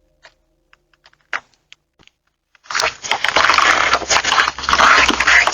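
A few faint clicks, then a loud, rough scraping and rustling noise that starts suddenly about two and a half seconds in, with a low rumble under it, as picked up by a doorbell camera's microphone.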